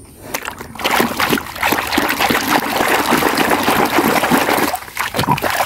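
A hand sloshing and scrubbing a mud-covered plastic toy truck in a basin of muddy water, with splashing and small knocks. It starts about a second in and pauses briefly near the end.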